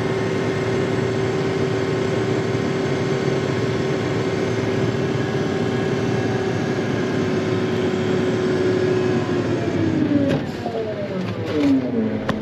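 Diesel engine of a heavy machine running at steady high revs, heard from inside the cab. About ten seconds in the revs fall away to a lower idle, with a few sharp clicks and knocks.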